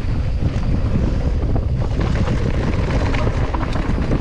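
Wind buffeting the microphone of a camera on a mountain bike descending a dirt trail, with a steady low rumble from the tyres and many small clicks and rattles from the bike over rough ground.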